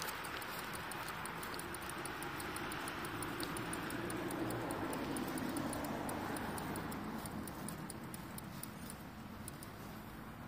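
Bicycle on the move, with steady rolling and wind noise and a fast, even ticking like a rear freewheel while coasting. The ticking fades in the last few seconds. A louder rumble swells in the middle and eases off.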